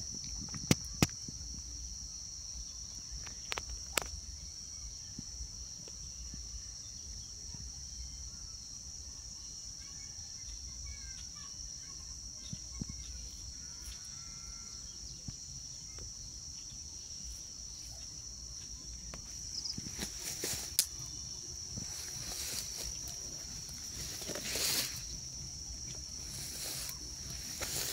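Steady high-pitched insect drone over outdoor ambience, with a few sharp clicks in the first few seconds and short bursts of rustling noise near the end.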